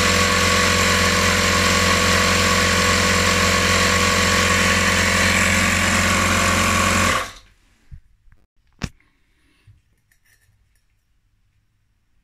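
Portable tyre-inflator air compressor running steadily and loudly, together with the LEGO pneumatic inline-three engine it drives. It is switched off about seven seconds in and the sound stops suddenly, followed by a few light knocks and one sharp click.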